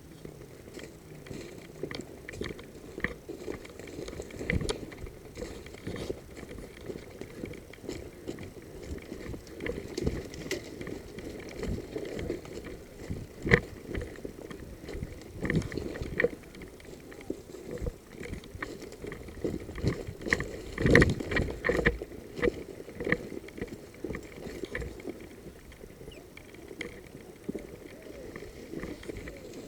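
Footsteps crunching and rustling through dry brush and branches, an irregular series of short crackles and thuds, with a louder cluster of crunches about two-thirds of the way through.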